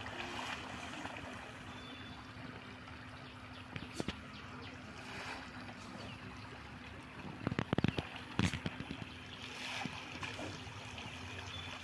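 Pond water churning and splashing as a dense shoal of farmed fish thrashes at the surface competing for feed, a steady watery rush. A brief cluster of louder, sharp sounds comes about eight seconds in.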